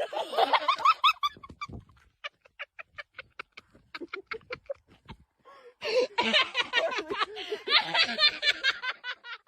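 An animal's high-pitched squeaky calls: a quick run of rising chirps at first, then a string of short evenly spaced chirps, then a dense burst of squeaky calls near the end.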